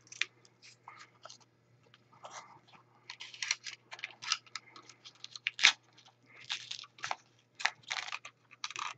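Paper wrapper of a PEZ candy pack crinkling and tearing as it is unwrapped and the sweets are handled, in a run of irregular short crackles that grow busier after about three seconds.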